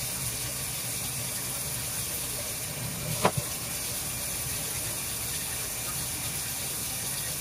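Tap water running steadily into a utility sink as small metal hand-plane parts are rinsed under the stream. A little over three seconds in, one sharp clack as a small metal part meets the sink.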